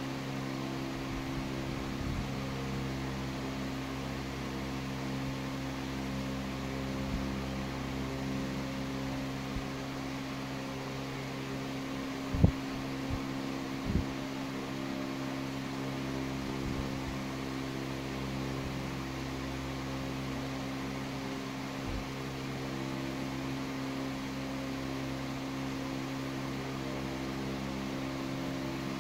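Steady fan-like mechanical hum with several low tones held constant throughout. Two short knocks come about halfway, a second or so apart.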